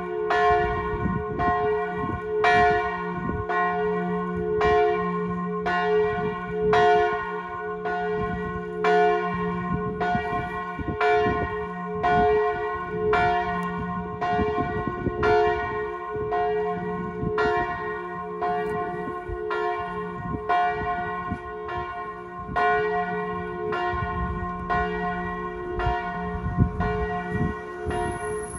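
Church bells tolling the death knell (glas): the large bell swinging in full peal while a smaller bell is struck in tolls, giving a steady run of evenly spaced strokes whose ringing tones carry over from one stroke to the next.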